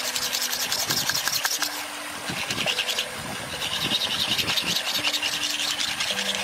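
A flat stone blade is ground back and forth on a wet boulder, making a rapid, rhythmic rasping scrape of stone on stone, with brief lulls twice in the middle.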